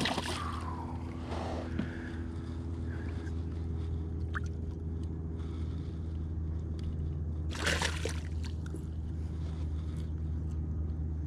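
A hooked largemouth bass splashing at the boat's side at the start. A steady low motor hum runs underneath throughout, with a short scuffling noise about eight seconds in.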